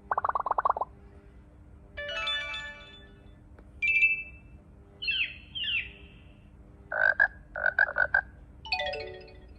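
Redmi 9 Power phone notification tones played one after another, each a different short sound about a second apart. First a fast buzzing rattle, then a chord, a short high beep, two quick gliding chirps, a rapid run of pulses, and near the end a falling run of notes.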